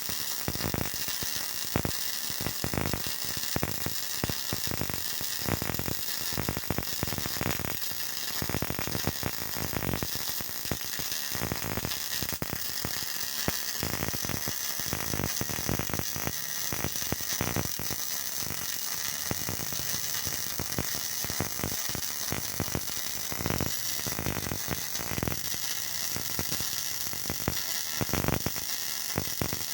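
Electric arc welding: the arc's steady, dense, irregular crackle.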